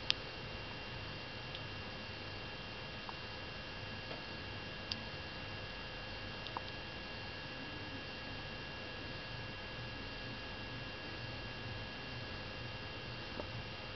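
Steady electrical hum with a faint high whine, broken by a few small clicks, the sharpest just after the start.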